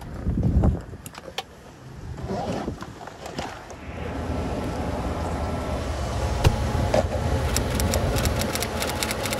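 A small commercial freezer's condensing unit running steadily from about four seconds in: the condenser fan motor and compressor give a low hum with even fan noise and a few light clicks, the fan apparently working normally. Before that there is a brief low thump and some handling noise.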